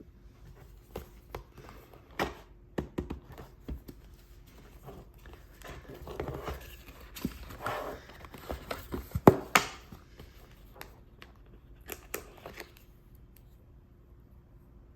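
A small retail box and its packaging being handled and opened by hand: sharp clicks and taps with crinkling and tearing of paper or plastic, the loudest knocks in the middle. The handling stops a couple of seconds before the end.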